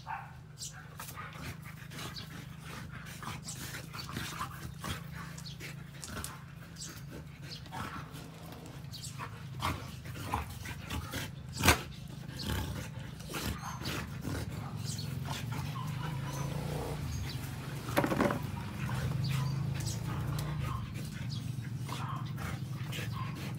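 A Belgian Malinois and a German Shepherd playing together, growling, with scuffling and short knocks as they move about on concrete; one sharp knock about halfway through.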